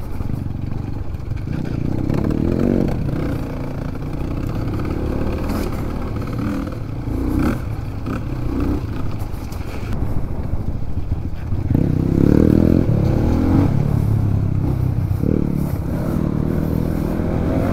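Motorcycle engine running under way, its revs rising and falling, with some rattle. It gets louder about two-thirds of the way through.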